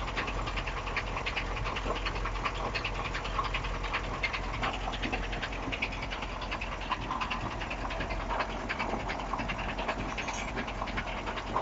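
KAMAZ truck engine running while its air pressure regulator, unloaded, vents the single-cylinder compressor's output through its exhaust port in rapid, steady puffs of air. Air coming in puffs rather than a continuous hiss is the sign that the supply line to the regulator is clear.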